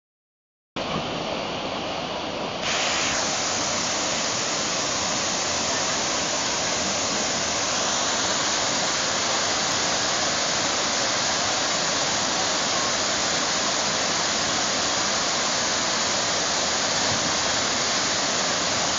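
Waterfall: a steady rush of falling water that starts about a second in and gets louder a couple of seconds later, then holds even.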